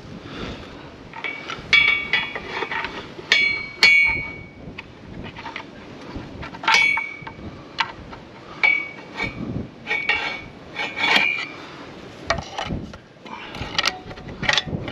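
Steel pry bar levering a cast-iron bell housing off a Fordson Super Major engine. It gives repeated sharp metal-on-metal clinks and knocks that ring briefly as the doweled housing comes away slowly.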